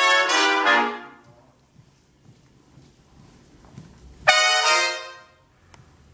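Big band trumpet section playing together: a held chord that cuts off about a second in, then a gap, then a single short, loud accented chord at about four seconds that dies away within a second.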